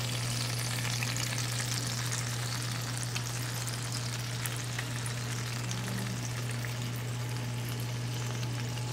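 Butter and pan juices sizzling with fine crackles around a roast pheasant and potatoes in a cast-iron skillet fresh from the oven, over a steady low hum.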